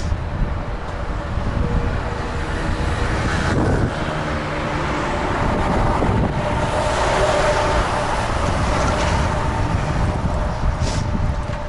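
Wind buffeting the microphone of a camera on a moving bicycle, a steady low rumble, over road traffic noise that swells about halfway through as a vehicle goes by.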